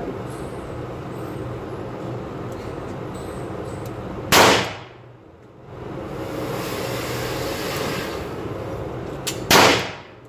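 Two shots from a Taurus .22 LR revolver, about five seconds apart, each a sharp crack that dies away quickly, over a steady background hiss.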